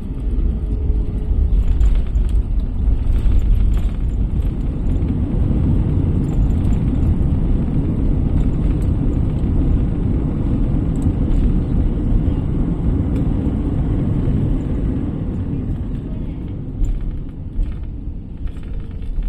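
Steady low rumble inside the cabin of an Airbus A321-200 during landing, easing off a little over the last few seconds.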